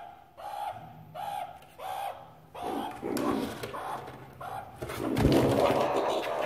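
Meerkats giving a string of short repeated calls, about two a second, which grow louder and run together in the second half, mixed with rustling of plastic bags and a heavier bump near the end.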